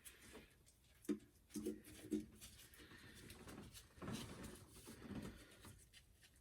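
Mostly quiet, with a few short, faint voice-like sounds about one to two seconds in and faint handling noise later on.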